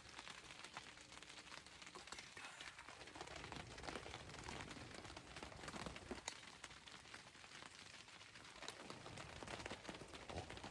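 Near silence: a faint background hiss with scattered soft crackles and ticks.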